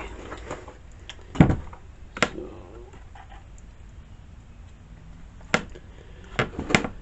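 A few scattered clicks and knocks from handling and cleaning out the chainsaw's air filter housing, the loudest a thump about one and a half seconds in.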